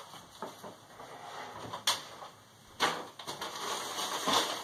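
Handling sounds as items are lifted out of shopping bags: small ticks, two sharp knocks about two and three seconds in, then rustling that grows toward the end.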